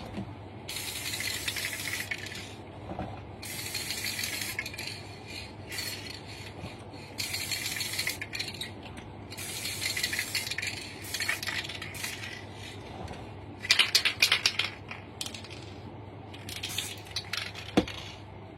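Aerosol can of chrome silver spray paint hissing in repeated bursts of a second or so, with short pauses between them. About fourteen seconds in there is a brief metallic clatter.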